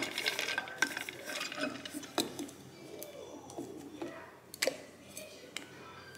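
Small clicks and knocks from handling the plastic flip-top straw lid of a child's stainless steel water bottle, with a couple of sharper snaps about two seconds and four and a half seconds in.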